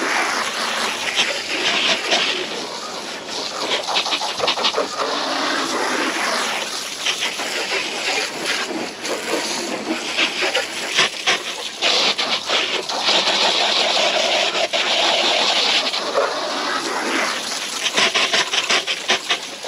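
Water spraying in a fine mist, hissing and spattering onto the engine bay as the cleaning chemicals are rinsed off, the spray coming and going in strength.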